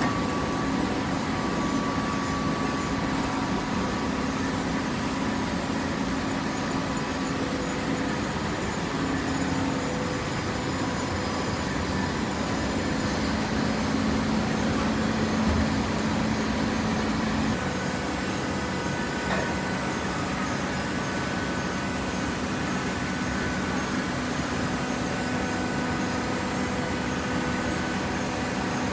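Hydraulic baler's motor and pump running steadily, a humming drone whose pitch steps slightly about a third of the way in and again a little past halfway.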